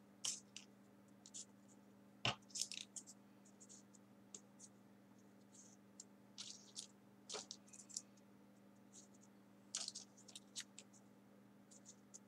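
Small folded paper origami pieces being pushed into the paper model: faint, irregular crisp paper ticks and rustles, a few sharper clicks among them, over a steady low hum.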